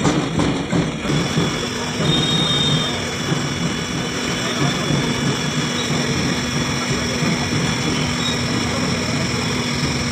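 Electric countertop blender motor running steadily, churning a cold coffee mix, with street noise behind it.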